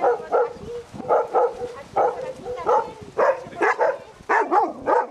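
Several dogs barking, short barks coming a few times a second.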